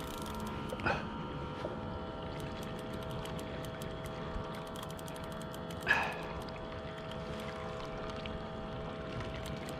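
Sea water lapping and sloshing against a fishing kayak, over a steady hum, with two brief louder sounds about a second in and about six seconds in.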